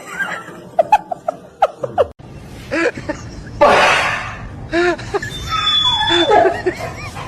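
A person laughing in short bursts, with a loud breathy rush of noise about four seconds in.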